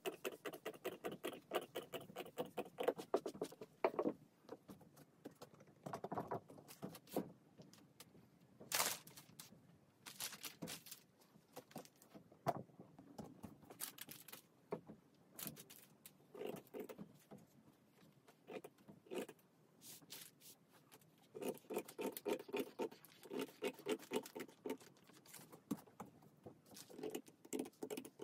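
Scissors snipping through kimono fabric, in runs of quick cuts separated by pauses.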